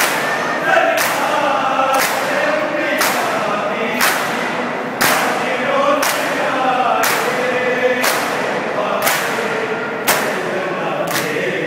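A crowd of men performing matam, striking their bare chests with open hands in unison about once a second while chanting a lament together.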